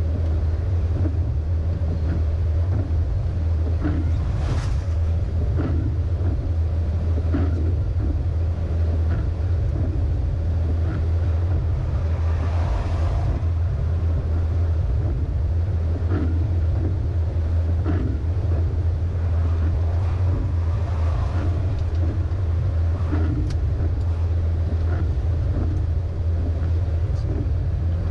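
MAN LE280B truck's diesel engine and tyres at highway cruise on a wet road: a steady low drone with light ticks and rattles scattered through it, and brief swells of rushing noise about four seconds in and again about twelve seconds in.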